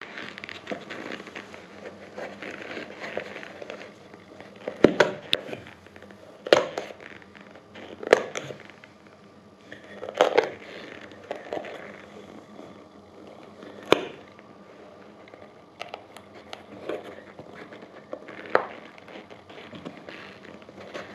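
Knife cutting into the upper of a suede sneaker: scraping and crinkly rustling as the blade works the material, with about six sharp cracks spread through as it punches or snaps through.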